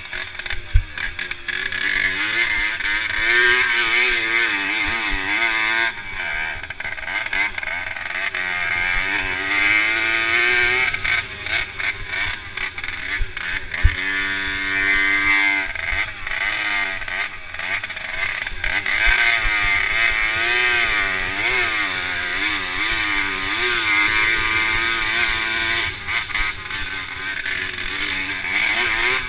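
Motorcycle engine revving up and down over and over as it is raced across rough grass, heard from on board. About halfway through it holds a steady high note for a moment, and there are a couple of sharp knocks from bumps.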